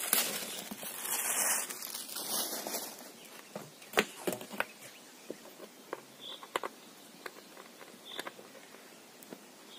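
Plastic bag crinkling as a foot pump is pulled out and unwrapped, for about the first three seconds, then scattered light clicks and knocks as the pump and its hose are handled.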